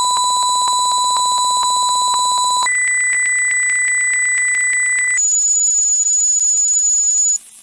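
Electronic hearing-test tones stepping up in pitch every two or three seconds: a mid tone and then a higher one, each pulsing a few times a second, then a steady high whistle, and near the end a very high, thin tone.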